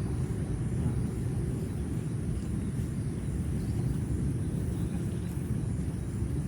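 Steady low rumble of outdoor background noise, with no distinct separate sound standing out.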